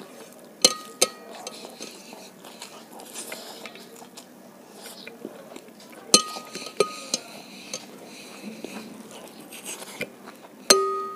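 Stainless steel plate clinking and ringing as fingers pick food crumbs off it: two sharp clinks near the start, two more about halfway, and the loudest clank near the end, which rings on for a moment.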